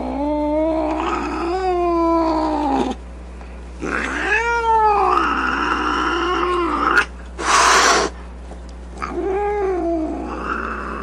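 Domestic cat yowling angrily in three long, drawn-out moaning calls whose pitch wavers up and down, with a short hiss between the second and third.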